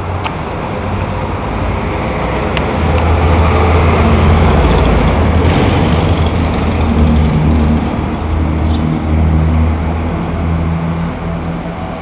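1948 Harley-Davidson flathead V-twin engine running with a steady low rumble. It grows louder through the middle and eases off again near the end.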